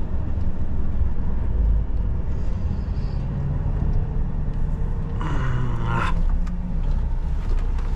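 Tatra Phoenix truck's diesel engine running at low revs, a steady low rumble heard from inside the cab, with a brief hiss about five seconds in.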